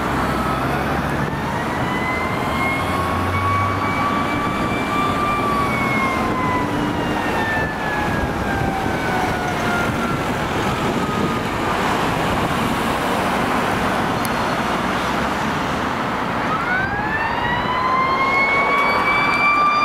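Fire engine siren wailing: one slow rise and fall in pitch, then a new rise starting near the end, over steady road traffic.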